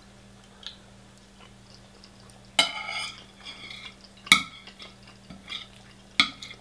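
Metal spoon scraping and clinking against a ceramic plate while scooping up rice, with three sharper clinks that ring briefly, about two and a half, four and six seconds in. A faint steady low hum runs underneath.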